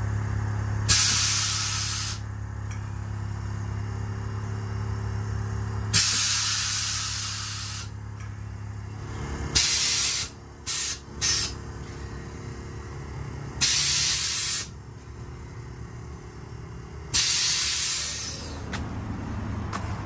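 Air ride suspension valves hissing in bursts as air is let into and out of the bags. There are about seven bursts: most last a second or two, with a few short quick ones in the middle.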